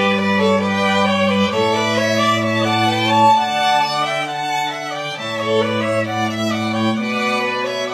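Bowed strings playing a slow classical piece: a violin melody over a cello bass line that moves to a new sustained note about every two seconds.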